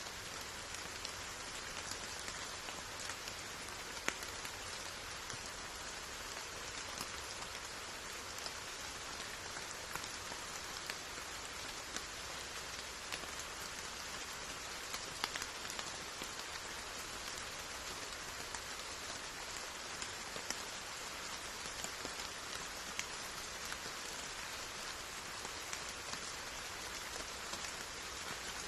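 Steady rain falling, an even hiss with scattered sharper drop taps standing out here and there.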